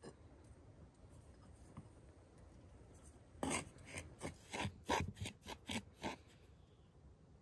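Wooden spoon scraping and stirring ground spices in a bowl: a run of about ten quick scraping strokes, starting about three seconds in and stopping about a second before the end.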